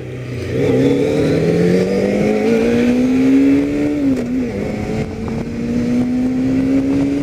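Kawasaki ZZR400N motorcycle's inline-four engine accelerating, the revs climbing steadily, dropping briefly at an upshift about four seconds in, then climbing again.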